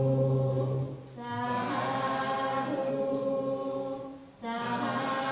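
Buddhist assembly chanting in unison, many voices holding long drawn-out notes. They break off briefly about a second in and again near the end, then carry on.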